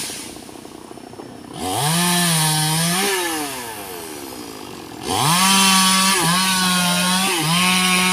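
Two-stroke chainsaw revving up from a low run to full throttle twice. The first burst comes about a second and a half in and lasts over a second before dropping back. The second comes at about five seconds and is held, its pitch dipping briefly twice.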